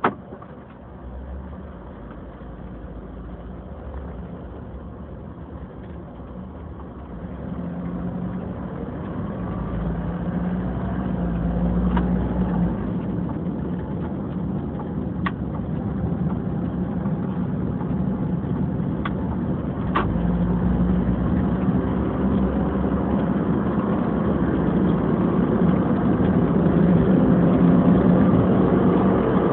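Car engine and road noise heard from inside the cabin, growing steadily louder as the car pulls away from a stop and gathers speed. A sharp click right at the start.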